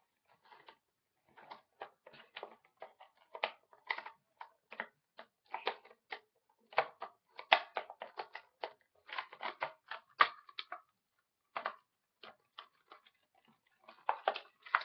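Packaging being opened by hand around a small mug candle: an irregular run of short crinkles, clicks and taps, with a brief lull a little past two-thirds of the way through.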